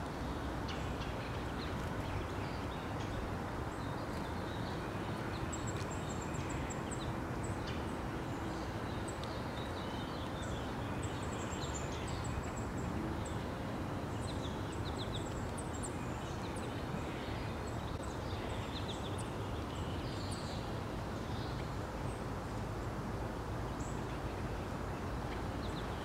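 Small songbirds giving short, high chips and thin calls scattered throughout, over a steady outdoor background noise.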